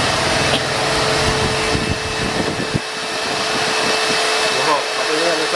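Shop Vac 16-litre wet/dry vacuum cleaner running, its hose nozzle sucking along a floor edge: a steady rush of air with a constant motor whine.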